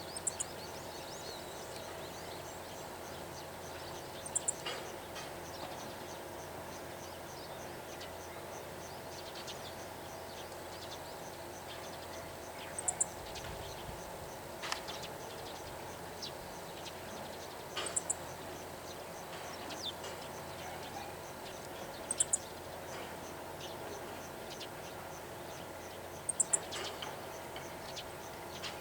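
Meadow bunting giving its short, high "chi-chi" ground-call notes, a quick pair repeated about every four to five seconds, over a steady background hum. It is a contact/alert call, which the uploader takes as possible wariness toward other birds nearby.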